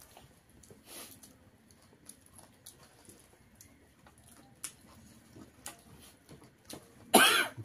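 Soft eating sounds: scattered small clicks and smacks of fingers mixing rice on a plate and of chewing, with one brief, louder noisy burst near the end.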